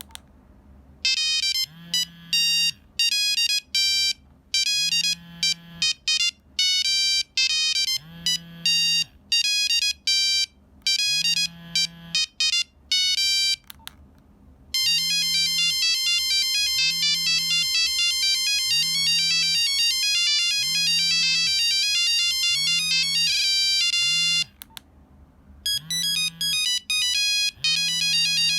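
Nokia 3395 mobile phone playing its monophonic beeping ringtone melodies, one tune giving way to a faster one about fifteen seconds in. A low buzz pulses every second or two beneath the notes.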